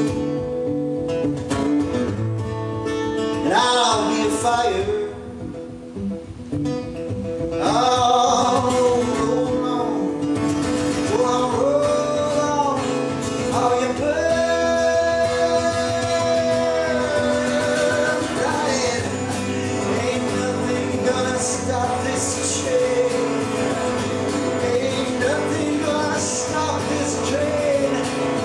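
A man singing, with long held notes, to his own acoustic guitar in a live performance.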